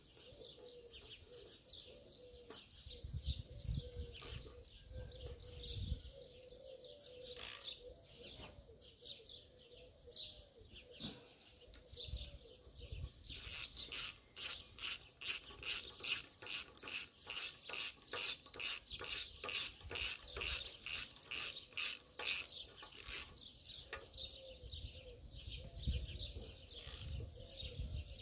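Rhythmic scraping of a hand tool worked back and forth, about two or three strokes a second, lasting roughly ten seconds from about halfway through. Birds chirp in the background throughout.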